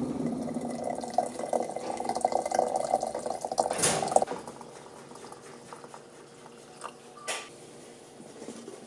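Water running or being poured, with a bubbling, crackly sound that stops abruptly about four seconds in. Two brief clicks follow, and the rest is quiet.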